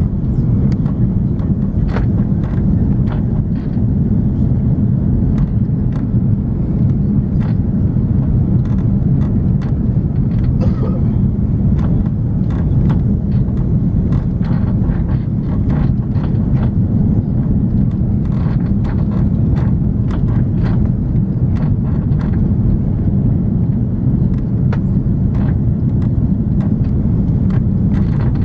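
Airbus A340-300 cabin noise: a steady, loud low rumble of the engines and airflow, with frequent short rattles and clicks of the cabin fittings throughout.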